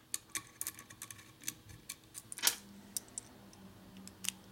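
Small metal parts clicking and clinking as they are handled and fitted into an aluminium rocker box: a run of light, irregular clicks, the loudest about two and a half seconds in.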